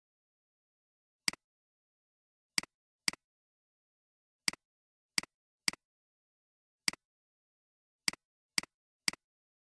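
Computer mouse button clicks, about ten single clicks at uneven intervals, each a quick press-and-release, with dead silence in between.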